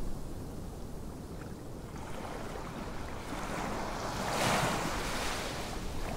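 Wind blowing over the microphone with a steady low rumble, swelling into a stronger gust about four seconds in and easing off again.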